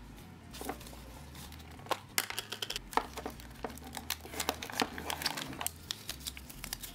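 Plastic packaging crinkling and crackling in many irregular sharp snaps as a sealed plastic toy can is torn open by hand.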